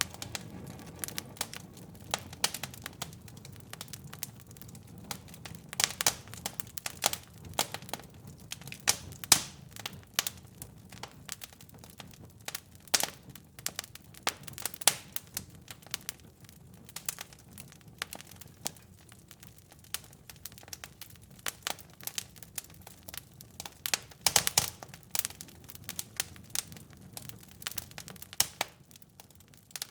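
Wood fire crackling in a fireplace: irregular sharp pops and snaps over a soft low rumble of flames, with a quick run of louder pops about 24 seconds in.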